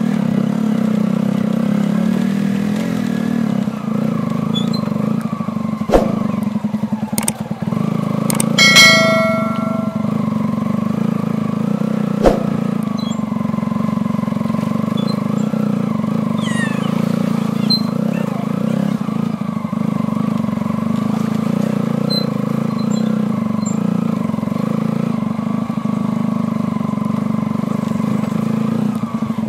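Motorcycle engine running steadily while riding slowly over a rough, rutted dirt road, with a couple of sharp knocks from the jolting. About nine seconds in, a loud beep lasts about a second.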